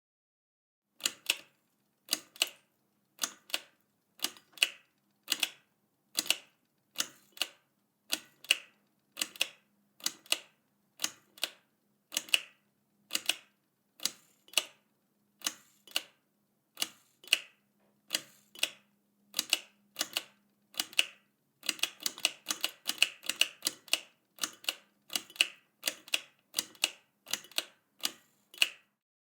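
Light pull-string switch clicking as the cord is pulled and released over and over, turning the light on and off. Each pull gives a quick double click, repeated about once a second, with a faster run of pulls about two-thirds of the way through.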